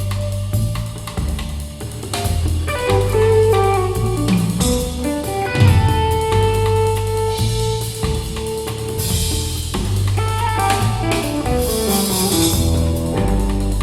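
Band music with drum kit, bass and guitar, played back through a bookshelf loudspeaker for a listening test.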